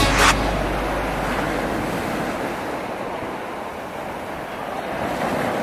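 Small waves washing up a sandy beach: a steady rush of surf that swells again near the end. A music track cuts off just at the start, its low bass note fading out over the next two seconds.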